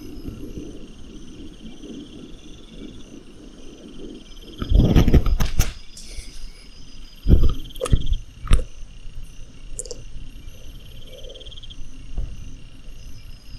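Crickets chirping in repeated short high trills. About five seconds in comes a loud second of thumps and rustling, followed by three sharp knocks between seven and eight and a half seconds in.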